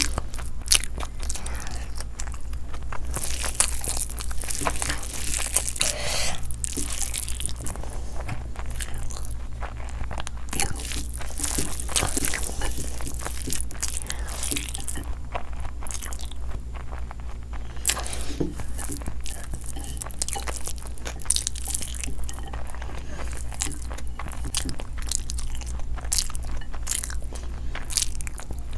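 Close-miked chewing and mouth sounds of a person eating egg biryani by hand: a continuous run of wet smacks and quick clicks of the mouth working on the food, over a steady low hum.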